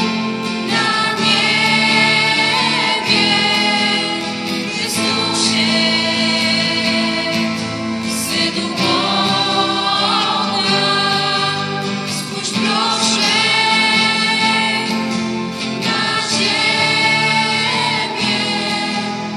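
Parish music group singing a religious song, several voices together in long held phrases over instrumental accompaniment.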